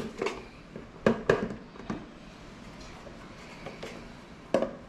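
A few short, sharp knocks and taps of a plastic container being handled against a stand mixer's steel bowl as flour is tipped and scooped in. The mixer is not running.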